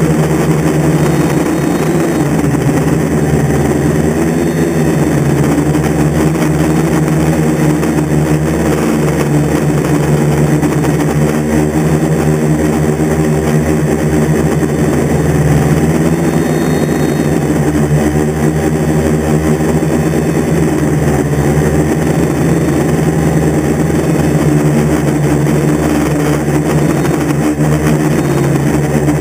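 DJI F450 quadcopter's four Xaircraft brushless motors and 10-inch propellers, heard close from the onboard camera: a loud, steady hum whose pitch drifts slightly up and down as the throttle changes.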